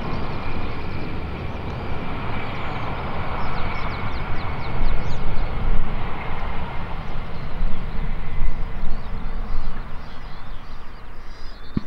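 Jet engines of an Airbus A321 rolling out on the runway after landing: a continuous rumbling roar with a thin whine that fades away over the first few seconds, the rumble swelling somewhat in the middle.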